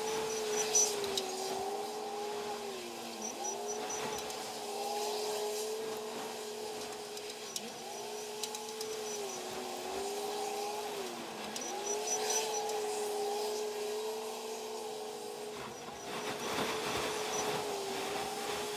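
Heavy machinery drone whose pitch sags and then recovers about every four seconds, with short runs of faint high-pitched beeps now and then.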